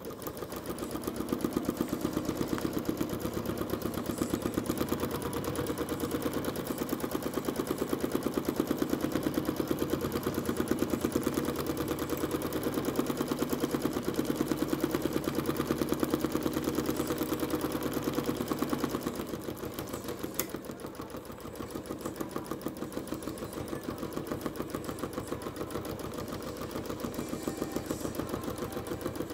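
Janome Skyline S9 sewing machine running fast for free-motion thread painting: a rapid, even chatter of needle strokes through the quilt layers. It starts up at the beginning, eases for a couple of seconds about two-thirds of the way through, then speeds up again.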